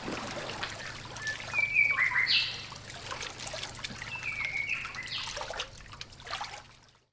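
Forest birds calling, a series of short whistled notes, some gliding up or down, over a low trickle of water; the sound cuts off suddenly near the end.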